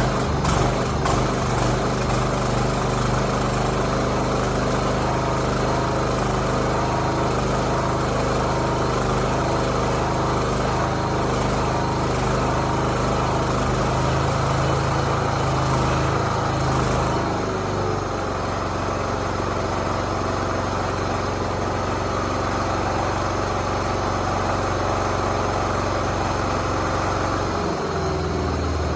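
1976 John Deere 300 riding lawnmower's engine running on its first cold start of the season, uneven for the first second or so, then steady. About two-thirds of the way through it drops to a lower, slightly quieter speed, with a brief dip in pitch near the end.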